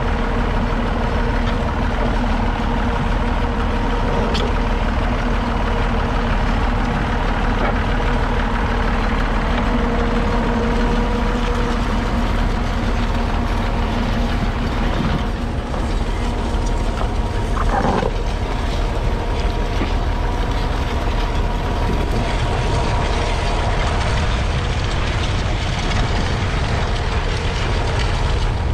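Massey Ferguson 135's 2.5-litre three-cylinder diesel engine running steadily while pulling a two-furrow reversible plough. A brief higher-pitched sound stands out about eighteen seconds in.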